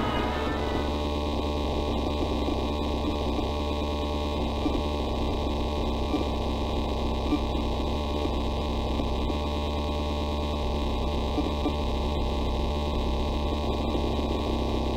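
Steady low electrical hum with a few faint clicks, the tape-noise drone of an analog-horror VHS ending. Orchestral brass music fades out in the first second.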